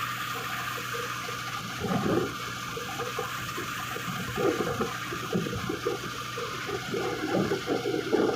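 Rice combine harvester running steadily: a constant engine hum under a rushing, hissing noise, with irregular louder swells every second or so.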